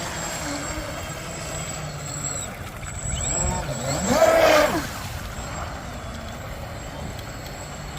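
Electric RC catamaran (Atomik 3S) motor whining as it runs on the water, rising in pitch and loudness to its loudest about four seconds in, then falling away.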